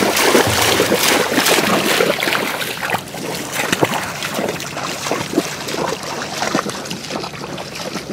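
Shallow floodwater splashing and sloshing, with many small irregular splashes, growing quieter in the second half.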